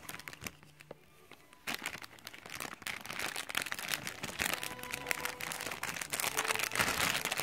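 Clear plastic toy bag crinkling as it is handled and opened by hand over crumpled aluminium foil. After a quiet first second or two, a dense run of small crackles.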